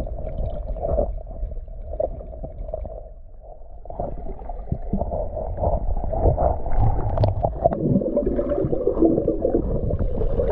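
Muffled underwater sound through a submerged camera: rumbling water movement with bubbling and scattered knocks as a hand-fisherman grapples underwater for a flathead catfish. It dips quieter about three seconds in.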